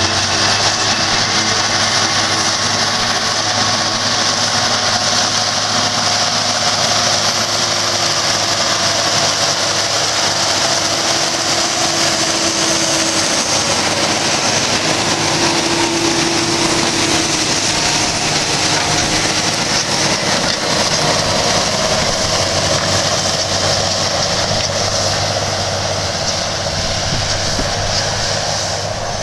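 John Deere tractor's diesel engine running steadily under load while pulling a reversible mouldboard plough through the soil. It passes close by, then grows a little quieter near the end as it moves away.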